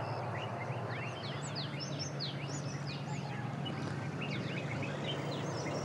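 Many birds calling at once: a dense chorus of short chirps and quick whistles over a steady background din.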